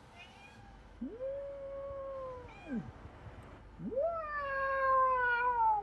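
Domestic cat meowing: two long drawn-out calls, each rising quickly, held steady, then falling away, the second louder than the first.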